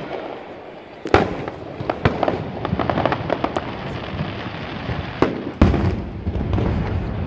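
Aerial fireworks shells bursting: a sharp bang about a second in, then a run of crackling pops, then a deep boom with a low rumble near the end.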